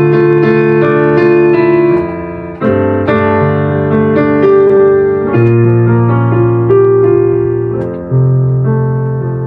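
Piano played with both hands: full chords held in the low and middle register, changing about every two and a half seconds, four chords in turn, with shorter notes moving above them.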